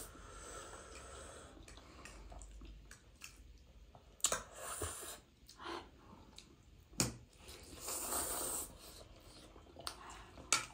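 Two people slurping and chewing spicy instant noodles, with short wet slurps and a few sharp clicks.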